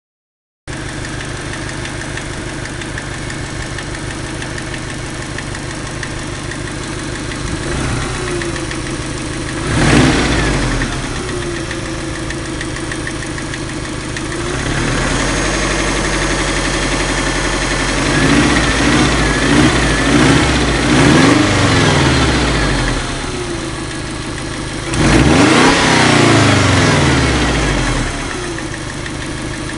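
Ford 2.0 turbo engine idling steadily, then revved several times in short blips, with a quick run of blips past the middle and a longer rev near the end. The owner says the engine knocks.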